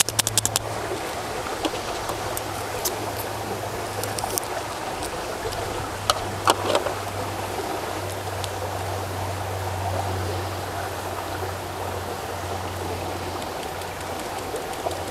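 Steady rush of a shallow creek running over rocks, with a low steady hum underneath. A few light clicks come from handling the powder packet, a quick run of them at the start and two sharp ones about six seconds in.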